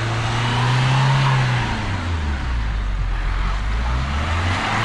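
Nissan Evalia van's engine revving while its tyres spin without grip on the icy road; the engine note drops sharply about two seconds in, holds low, then picks up again near the end.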